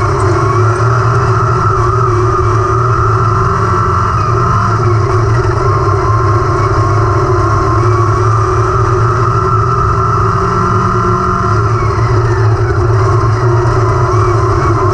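Wingless sprint cars racing on a dirt oval, their engines running hard in a loud, unbroken drone whose pitch wavers, rising and dipping slightly as the throttle comes on and eases through the turns.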